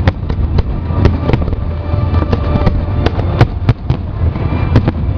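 Fireworks bursting in rapid succession: many sharp bangs, several a second, over a continuous low rumble of overlapping explosions.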